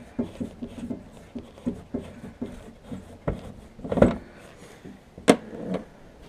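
Socket ratchet clicking in a quick run, about five clicks a second, as a 10 mm bumper bolt by the headlights of a Honda TRX420 ATV is turned out. Then come a few knocks, the loudest about four seconds in, and a sharp metallic clank just after five seconds.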